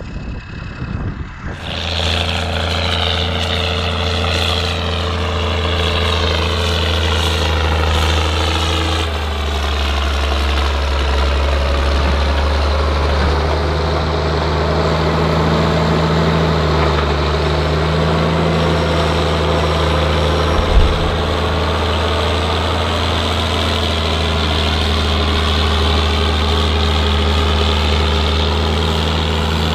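Ford TW tractor's diesel engine running steadily, coming in loud about two seconds in. There is a single short knock about two-thirds of the way through.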